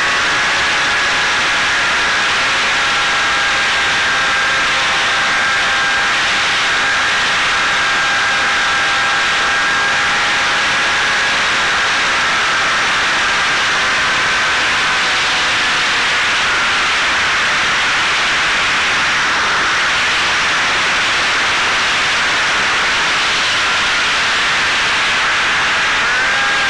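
Electric motor and propeller of a Caipirinha flying-wing FPV plane, heard through its onboard camera: a steady whine under a loud rush of wind. The pitch drifts slightly and rises briefly near the end.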